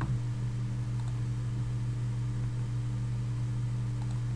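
Steady low hum and hiss of the recording setup, with a few faint clicks.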